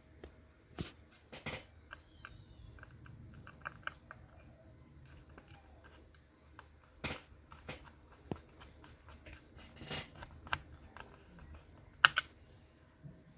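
Irregular small clicks and taps of a screwdriver and screws on a laptop's plastic and metal parts, with a sharper double click near the end.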